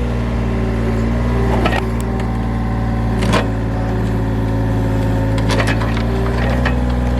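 John Deere 35G mini excavator's diesel engine running steadily under load while it digs at a stump, with a few short sharp knocks from the work.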